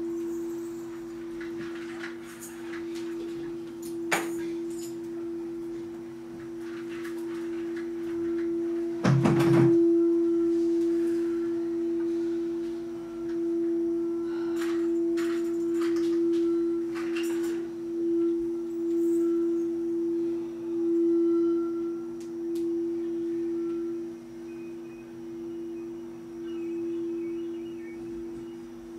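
Singing bowl ringing with a steady sustained tone and a weaker lower tone beneath it, swelling and fading in slow waves. A few light knocks and clicks come over it, with a louder thump about nine seconds in.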